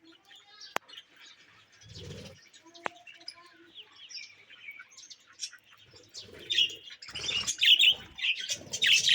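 Small birds chirping and calling, with many short high chirps that grow busier and louder in the last few seconds. Lower-pitched sounds come in about two seconds in and again near the end.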